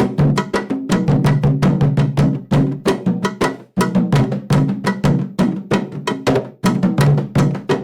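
Afro-Brazilian drums playing an ijexá rhythm, the toque for Oxum: a quick, steady run of sharp strokes over deep, ringing drum tones.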